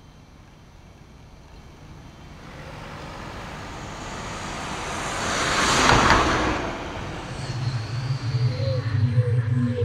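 A car drives past on a street, its tyre and engine noise swelling to a peak about six seconds in and then fading. Near the end a low, wavering tone sets in.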